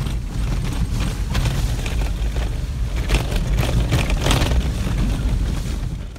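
A 4x4 truck driving along a rough dirt track, heard from inside the cab: a steady low rumble of engine and tyres, with a few light knocks and rattles around the middle. It fades out at the very end.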